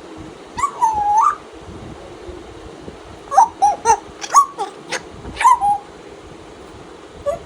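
African grey parrot calling: one drawn-out call about a second in that dips and then rises in pitch, a quick run of short sliding notes between about three and six seconds, and one short note near the end.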